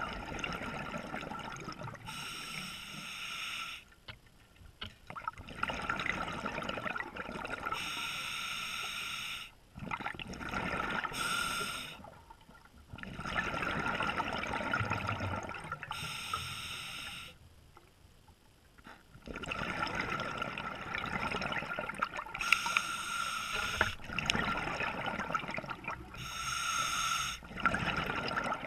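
Scuba diver breathing underwater through a regulator: hissing draws alternate with rushes of exhaled bubbles in a slow rhythm of about one breath every four to five seconds, with short pauses between breaths.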